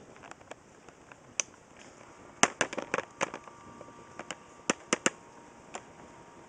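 A scattered run of sharp, short clicks and taps over a faint hiss, bunched about two and a half seconds in and again around five seconds in.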